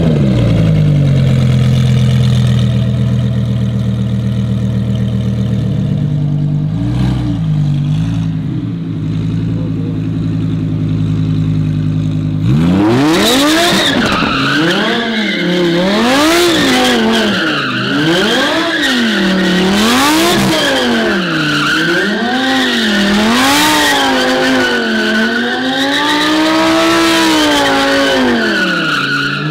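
Supercharged Lamborghini Huracán V10 with a titanium exhaust. It holds steady high revs for about twelve seconds with one brief blip, then revs up and down over and over as it spins donuts, its rear tires squealing throughout the second part.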